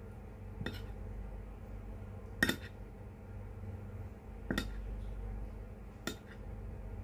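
Cutlery clinking against dishware while eating a meal of fish stewed in broth, four separate short strikes spaced a second or two apart, the second the loudest.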